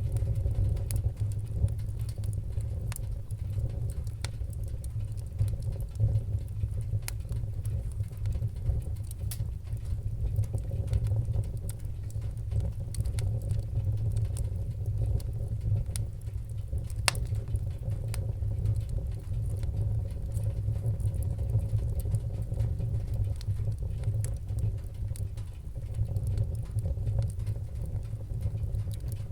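Fireplace fire crackling: irregular sharp pops and snaps, about one a second, over a steady low rumble of burning flames.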